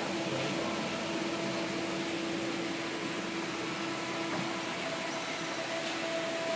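Steady machine hum with a constant low tone over a broad hiss from the fish shop's tank filtration and aeration equipment running.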